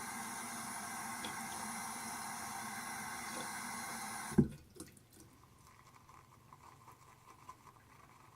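Water tap running in a steady stream for about four seconds, then cut off, with one sharp knock as it stops. Only faint small handling sounds follow.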